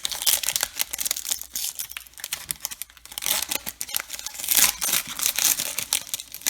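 A trading card pack's wrapper being torn open and crinkled: a dense crackling full of small clicks, busiest a little after the middle.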